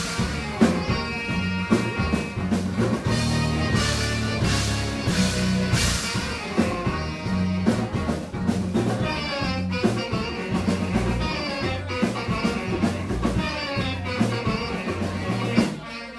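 Live band music with a drum kit keeping a steady beat under pitched instruments; the full band drops out abruptly near the end.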